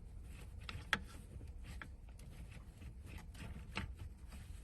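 A few light clicks and taps, the sharpest about a second in, as a flat screwdriver pries at a squeezed fuel line connector on a fuel pump sender unit to release it.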